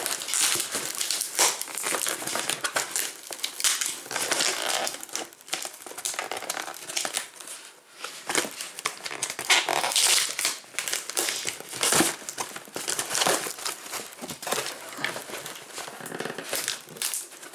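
Packaging being pulled and worked open by hand: continuous irregular crinkling and rustling with sharp crackles and clicks, the loudest snaps about ten and twelve seconds in.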